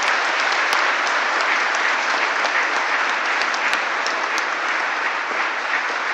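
Church congregation applauding steadily, a dense patter of many hands clapping.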